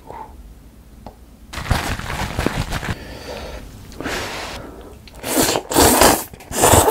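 Close-up slurping of a mouthful of instant stir-fried noodles, in several loud, breathy pulls, the loudest near the end.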